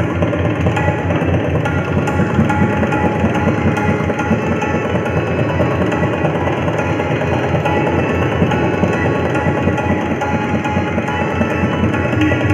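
Tabla solo in teental: a rapid, unbroken stream of strokes on the tabla, over a harmonium holding a repeating melodic line.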